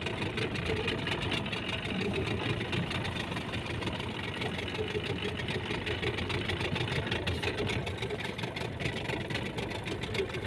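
Small fishing boat's engine idling steadily.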